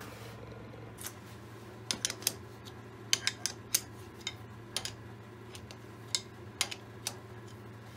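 Irregular sharp metallic clicks and clinks as a steel bar is worked in the head of a Schaublin SV52 milling machine to unclamp it for swinging around. Between one and three clicks come every second, over a steady low hum.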